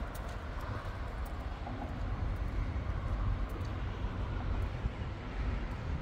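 Steady outdoor rumble: road traffic on a nearby bridge mixed with wind buffeting the microphone.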